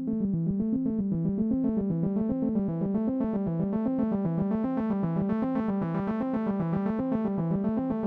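Background music: a repeating pattern of keyboard notes over a fast, even pulse, starting abruptly out of silence.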